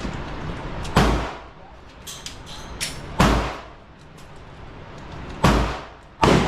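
Four gunshots at a shooting range, unevenly spaced about two seconds apart with the last two close together, each followed by a short echoing tail.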